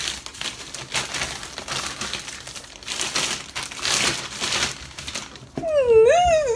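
Plastic mailer bag rustling and crinkling as it is torn open and handled and a boxed iPad is pulled out. Near the end, a woman's voice gives a loud, drawn-out excited sound that wavers up and down in pitch.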